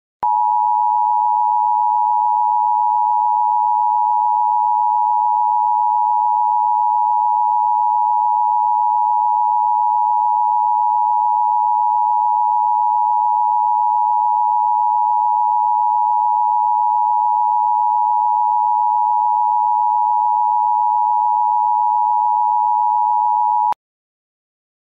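Emergency Broadcast System attention signal: two steady tones at 853 and 960 Hz sounding together as one continuous tone, held for about 23 seconds and cutting off suddenly near the end. It announces the start of an EBS test.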